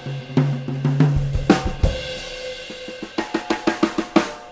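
Drum kit played with Zildjian cymbals: kick, snare and tom strokes under ringing cymbals, the low drums sustaining between hits. Near the end comes a fast fill of rapid strokes, about eight a second.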